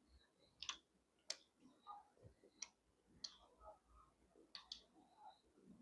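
Faint mouth sounds of someone chewing momos: sharp wet clicks and smacks roughly once a second, with soft chewing between.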